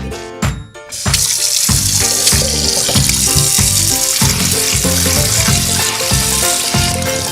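Cartoon sound effect of food sizzling in a frying pan, a steady hiss that starts about a second in, over bouncy children's background music with a steady beat.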